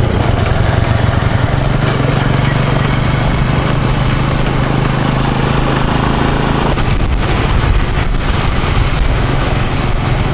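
Small motorcycle engine running steadily under way, with heavy wind noise on the microphone. About seven seconds in, the low engine hum drops back and the wind rush gets stronger.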